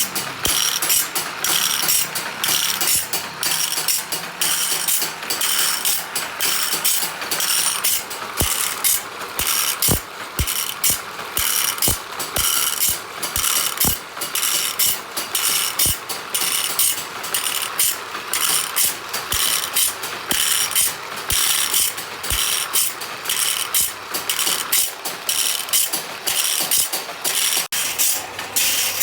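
Automatic band saw blade sharpening machine running, its feed ratcheting the blade forward and grinding tooth after tooth in an even clicking rhythm of a few strokes a second, over a steady grinding hiss.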